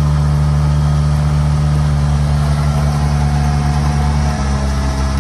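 A vehicle engine running loud and steady at a low, even speed, its low hum shifting slightly about four seconds in.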